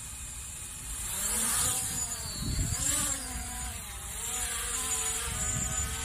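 Small quadcopter drone's motors and propellers spinning up and lifting it off, starting about a second in: a whine whose pitch rises and falls as the motors change speed.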